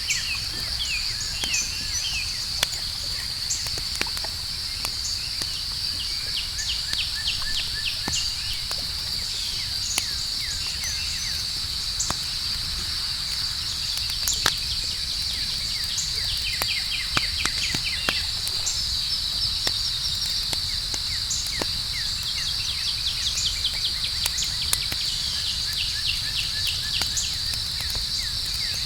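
Campfire crackling with scattered sharp pops, over a steady high chorus of night insects and occasional bursts of quick, rapidly repeated chirps.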